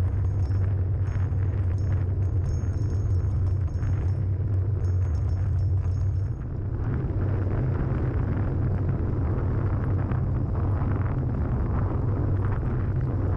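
Wind buffeting a camera microphone moving fast downhill, a steady heavy rumble, over the hiss of wheels rolling on asphalt. A faint high whistle comes and goes in the first half and stops about six seconds in.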